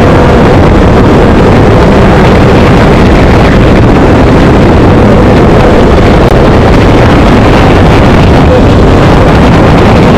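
Loud, steady rumble of a moving vehicle, with wind on the microphone.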